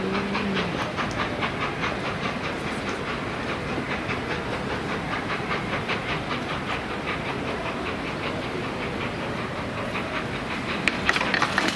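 A steam locomotive pulls a train away under load, its exhaust beating in an even rhythm of about five beats a second over a steady hiss of steam. A whistle note dies away at the very start. A burst of sharp clicks comes near the end.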